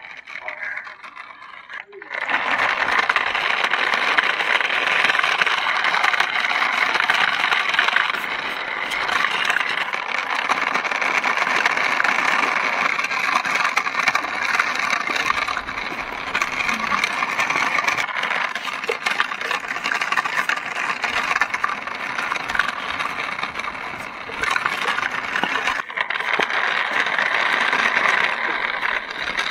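Battery-powered toy remote-control car driving: its small electric motor and plastic gears whirring, with the wheels grinding over rough concrete. The sound starts abruptly about two seconds in and then runs steadily with small dips in level.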